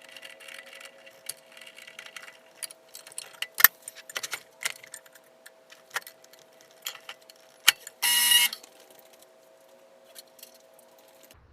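Scattered metallic clicks and clinks of tools and small hardware being handled, with a short loud burst about eight seconds in and a faint steady hum behind.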